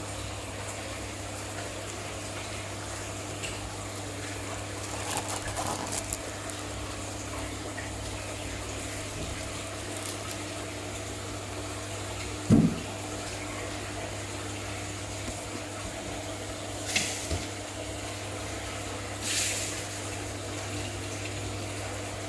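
Steady hum and water flow of an aquarium pump, with a few short splashes and one sharp knock a little past halfway, the loudest sound.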